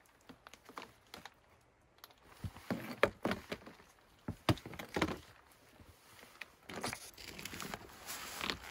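Snowshoes being strapped onto boots: scattered clicks and knocks of the binding straps, buckles and frames against the wooden porch boards, turning to a busier rustle of straps and clothing in the last couple of seconds.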